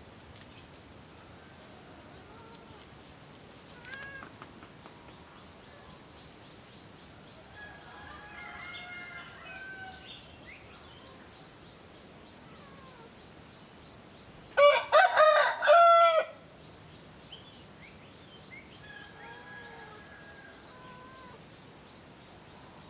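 A rooster crows once, loudly, about fifteen seconds in: a pitched call of several notes lasting under two seconds. Faint, scattered bird calls come and go around it.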